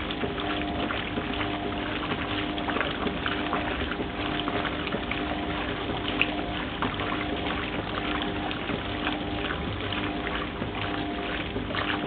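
1971 Simpson Fluid Drive top-loading washing machine agitating a load: water and clothes sloshing in the tub over a steady hum from the machine's drive.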